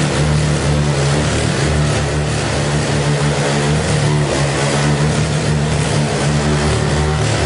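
Engine of a Ninong 308B cement-work cultivator running steadily.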